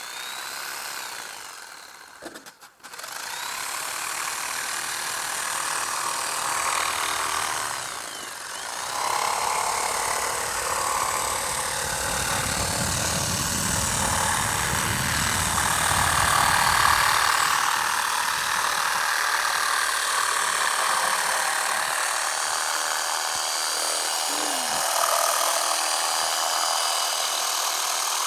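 Table saw running and cutting through a shower wall panel, with a steady, loud cutting noise that drops out briefly about two seconds in.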